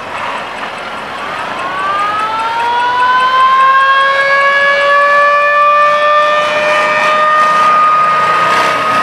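A siren winding up: about a second in, its pitch rises over a couple of seconds, then holds steady as a loud, even tone with several overtones.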